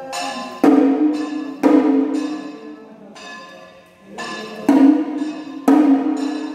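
Large metal temple bell struck, four loud strikes in two pairs about a second apart, each ringing on and dying away, with a quieter strike between the pairs.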